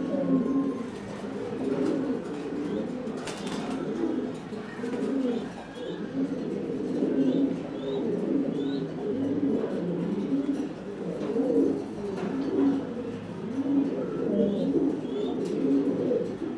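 Domestic pigeons cooing continuously, low rolling coos overlapping one another. A male with puffed neck feathers and dragging tail is strutting in the bow-coo courtship display.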